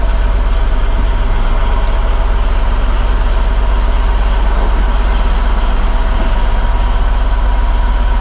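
Fishing boat's diesel engine running steadily: a deep, constant drone.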